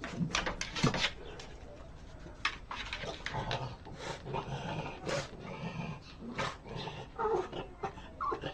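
A French bulldog scrabbling its claws against a wooden door, in quick irregular scratches, with a few short low vocal sounds in between.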